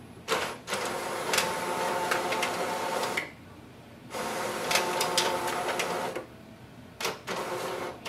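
An Epson WorkForce Pro WF-4830's automatic document feeder pulls two pages through one after the other while scanning. A motor whirs with clicks in two runs of about three and two seconds, then runs again briefly near the end.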